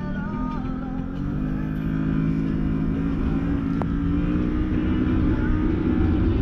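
Can-Am Maverick Sport X mr side-by-side's engine running under load on the trail. Its revs rise about a second in and then hold steady.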